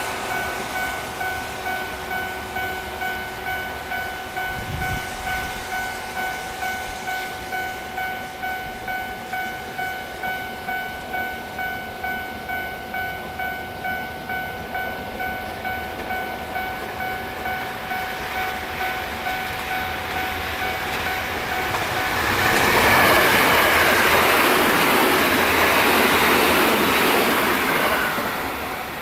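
Japanese level-crossing warning bell ringing in an even, repeating ding. About two-thirds of the way through, a train rushes past with a loud rushing rattle for about six seconds, the loudest part, while the bell keeps ringing.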